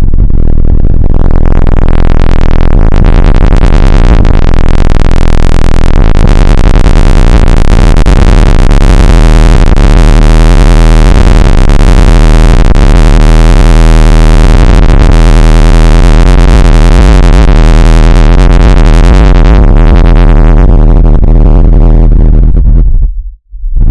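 Harsh, distorted synthesized electronic noise played very loud, a dense hiss-like wash over a heavy low bass drone. It swells up from silence over the first second or two, its top end thins out near the end, and it cuts out briefly just before resuming.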